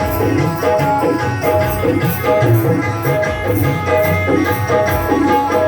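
Instrumental interlude of Rajasthani devotional folk music: sustained melody notes over a steady drum rhythm, with no singing.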